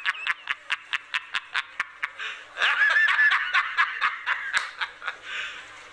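A man laughing hard: a quick run of short ha's, about five a second, with a louder drawn-out stretch of laughter about two and a half seconds in, then more quick ha's.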